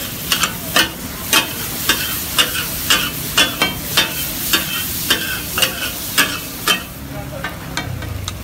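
Flat metal spatulas striking a large round steel griddle as kata kat is chopped and stirred on it: sharp clanging strikes about twice a second over the steady sizzle of frying. The strikes stop about seven seconds in, leaving the sizzle.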